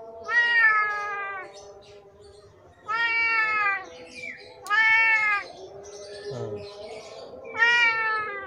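Young tabby kitten meowing loudly four times, each call a drawn-out falling cry, which the rescuer takes for hunger.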